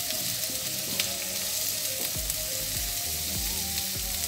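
Prawns sizzling in hot oil with garlic and onion in a frying pan, turned over now and then with a wooden spatula. A steady frying hiss.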